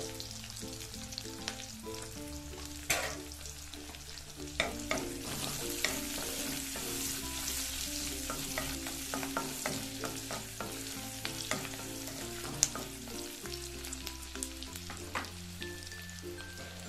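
Chopped garlic, ginger and green chillies sizzling in hot oil in an aluminium kadai, with a steady high hiss. A spatula stirs them, knocking sharply against the pan a handful of times.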